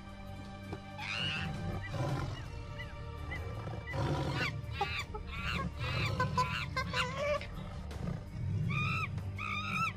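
Background music with a steady low beat, overlaid with shrill, arching animal calls in bursts: a dense cluster in the middle and a quick repeated series of calls near the end.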